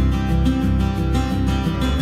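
Instrumental background music with guitar, its chord changing near the end.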